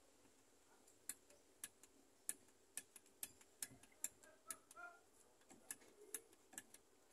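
Small plastic clicks of a DH48S-S timer's thumbwheel digit buttons being pressed one after another, about two a second, each press stepping a digit of the hour setting.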